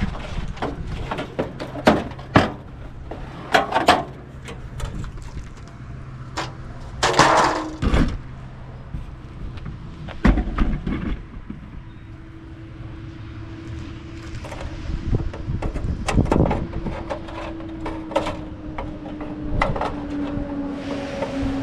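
Metal light fixtures being taken apart by hand for scrap: irregular clanks and knocks of sheet metal and parts. A steady low hum comes in about halfway and grows louder near the end.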